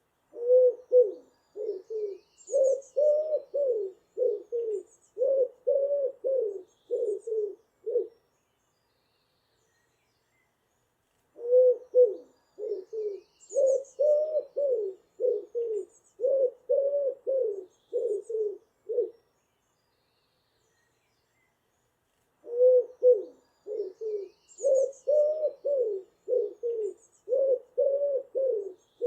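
Pigeon cooing in three long bouts of rapid, low coos, each bout about eight seconds long with short pauses between, with faint high chirps of other birds.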